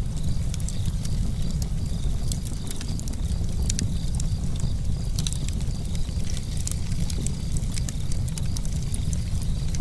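Outdoor nature ambience led by a steady low rumble of wind on the microphone, with a faint high chirp repeating every fraction of a second and scattered sharp clicks.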